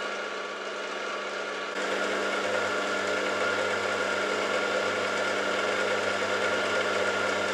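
Warco Super Major milling machine running steadily with an edge finder spinning in its spindle, a constant machine hum that gets a little louder and fuller about two seconds in.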